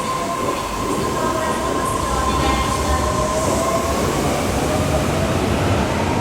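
Osaka Metro 400 series train pulling out of the station: motor whine with steady tones over the running rumble of the wheels on the rails, growing slightly louder.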